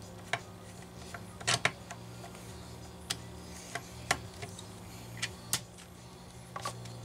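Scattered light clicks and taps of hand tools and small metal parts being handled while a chainsaw's recoil starter is taken apart, over a low steady hum.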